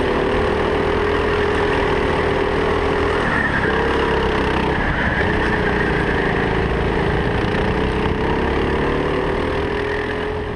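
Go-kart engine running at speed, heard from on board. Its pitch wavers up and down, dipping briefly twice, about three and five seconds in, then climbing again.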